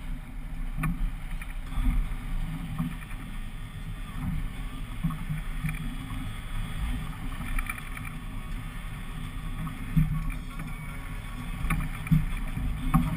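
Steady low rumble of a small fishing boat with twin outboards at sea, swelling and easing, with a few sharp knocks and clatter on deck.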